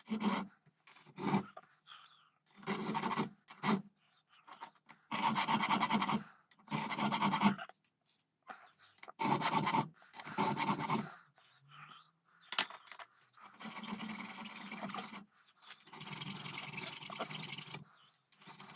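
Small hand file rasping over a metal part held in a bench vise, in a run of uneven strokes each about a second long with short pauses between.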